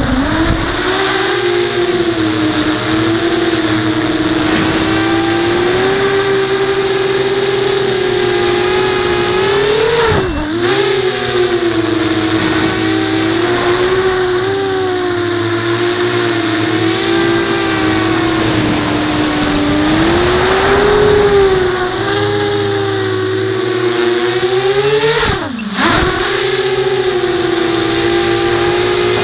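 Brotherhobby Returner R5 brushless motors spinning 5-inch HQProp propellers on an FPV racing quadcopter, heard from its onboard camera. The motors make a steady whine whose pitch wavers constantly. Twice, about ten seconds in and again near the end, the pitch drops sharply and then climbs straight back up.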